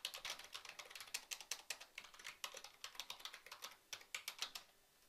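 Typing on a computer keyboard: a quick, uneven run of key clicks that stops shortly before the end.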